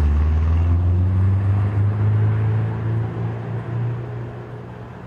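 A vehicle engine running with a steady low drone that fades over the last couple of seconds.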